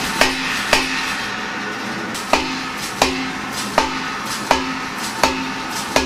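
Hammer blows forging a hot steel bar on steel: about eight sharp metallic strikes at uneven intervals, each with a brief ring, with a pause of over a second after the second strike.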